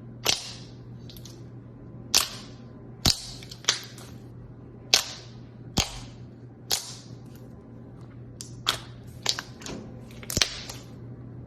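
Slime being squeezed and pressed, its trapped air pockets popping in a dozen or so sharp snaps at irregular intervals.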